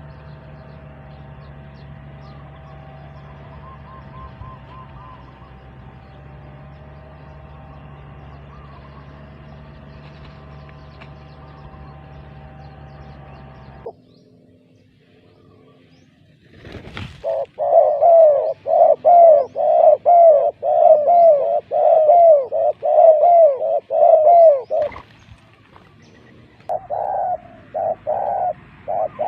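A steady low hum with faint bird calls cuts off suddenly about halfway through. A few seconds later a spotted dove coos loudly in a rapid run of repeated notes for about eight seconds, and starts again near the end.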